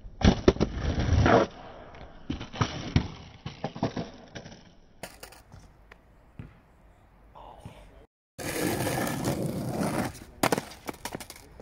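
Skateboard on rough asphalt during ollie attempts. It opens with the tail popping and the board clattering and slapping down on the pavement, followed by scattered knocks. Later the wheels roll steadily over the asphalt, and near the end there are more sharp pops and clacks of the board.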